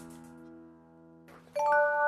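Background music: a guitar chord rings and dies away, then a bright mallet note like a glockenspiel is struck near the end and rings on.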